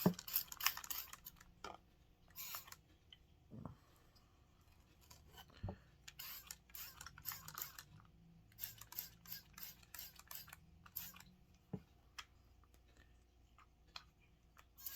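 Aerosol gun cleaner sprayed onto a revolver in a series of short hissing bursts, with a few soft knocks from handling the gun in between.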